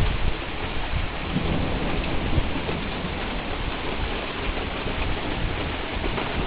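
Rain falling steadily in a thunderstorm, with a low rumble of thunder underneath.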